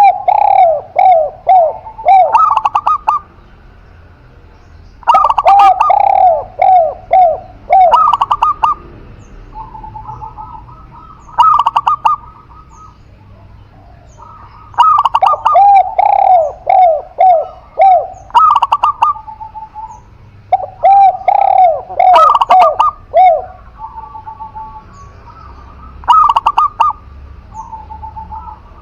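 Spotted dove and zebra dove cooing. Phrases of quick, arching coo notes come every few seconds, with short steady coos between them and brief pauses.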